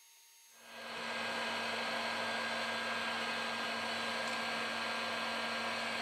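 Electric blower, such as a hot air gun, starting up about half a second in and running steadily: an even rushing of air over a constant motor hum.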